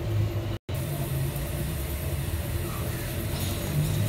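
A steady low engine hum, like a motor vehicle running at idle, broken by a brief dropout about half a second in.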